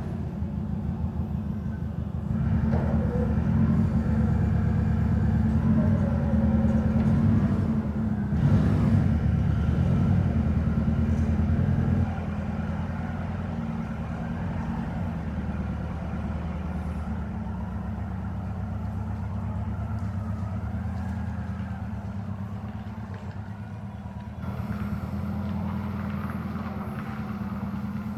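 A combustion engine running steadily. It runs louder for about ten seconds, then drops to a lower, even note about twelve seconds in.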